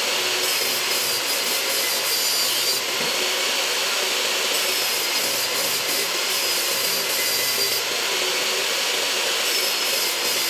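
Power saw running steadily as it cuts wood, an even loud rush of noise with a faint high whine.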